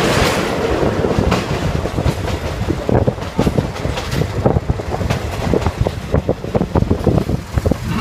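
State Railway of Thailand ordinary train running, heard from inside a passenger carriage: a heavy low rumble with the wheels knocking and clattering over the rail joints, the knocks coming thicker from about halfway through.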